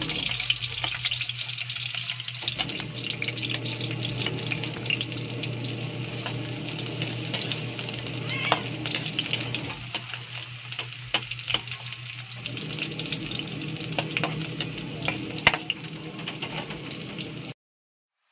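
Chopped onions sizzling steadily in hot oil in a wok, with a metal spatula scraping and clicking against the pan as they are stirred. The sound cuts off abruptly near the end.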